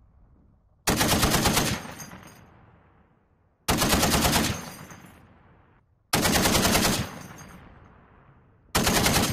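Browning M2 .50-calibre heavy machine gun firing four short bursts of rapid shots, each under a second long and two to three seconds apart, with an echo dying away after each.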